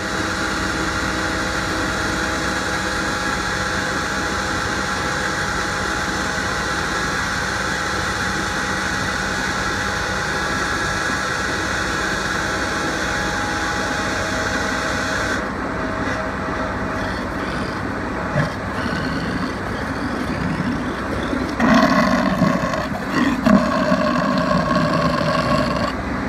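Matrix DH45 shear pump running steadily, with a fixed machine whine, as it mixes ginger paste into water drawn from its stainless steel hopper. About two-thirds of the way through its high hiss drops away, and near the end it grows louder and more uneven.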